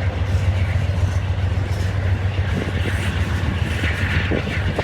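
Union Pacific freight train rolling past, a steady low rumble.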